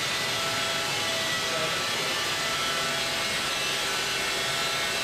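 Stone-workshop machinery running steadily: an even hiss with a faint high whine over it, holding the same level throughout.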